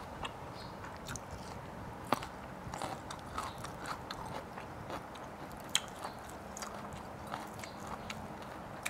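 Close-miked chewing of crispy-skinned chicken, with small wet crackles and clicks as the skin and meat are torn apart by hand. Two sharper crunchy snaps stand out, about two seconds in and just before six seconds.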